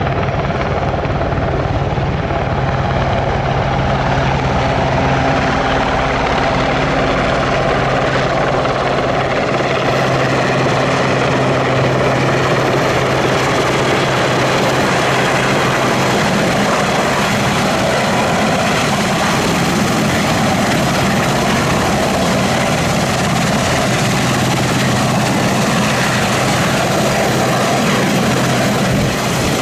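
Westland Sea King HAS.5 helicopter, its main and tail rotors and twin Rolls-Royce Gnome turboshaft engines loud and steady as it comes in low and settles into a hover.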